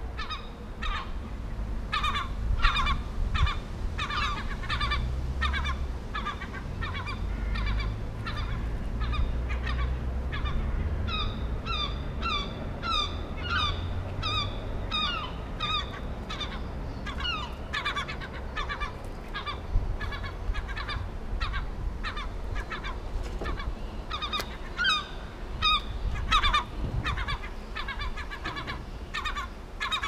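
Birds calling over and over, many short calls overlapping about twice a second, over a low rumble.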